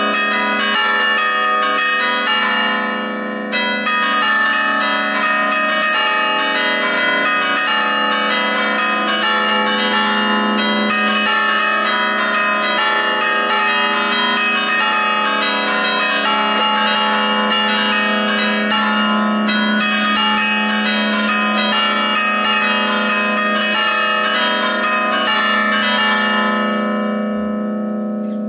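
Church bells from a five-bell Ambrosian-system peal in E3, chimed by hammers in an allegrezza: a quick festive run of strikes across several bells, not tuned to a scale. The strikes stop near the end, and the bells' ringing hum fades away.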